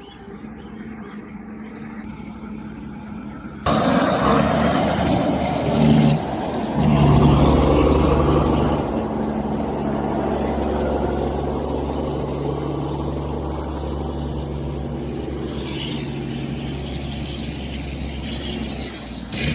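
A motor vehicle's engine running steadily and loudly close by. It starts abruptly about four seconds in, after a few quieter seconds.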